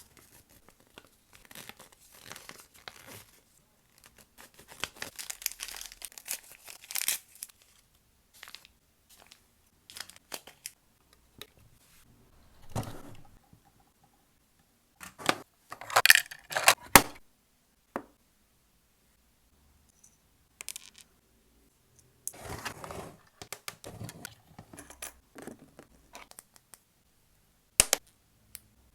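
Packaging being torn open and crinkled by hand in short bouts of rustling, loudest about halfway through, with a few sharp clicks and taps from small pieces being handled.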